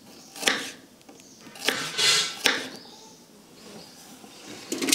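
A kitchen knife slicing through bitter gourd onto a wooden chopping board: several separate knife strikes at uneven gaps, with a short scrape about two seconds in.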